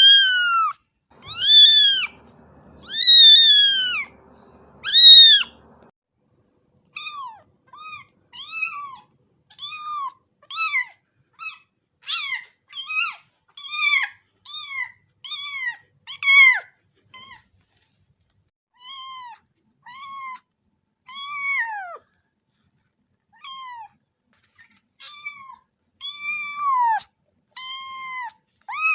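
A cat meowing over and over. Four loud, drawn-out meows come in the first five seconds, then a long run of shorter, softer meows about one a second.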